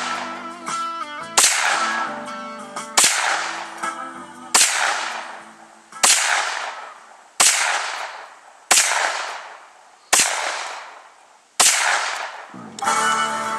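9mm carbine fired in steady semi-automatic shots, eight of them about one and a half seconds apart, each shot ringing out and fading. Background music plays underneath and grows louder near the end.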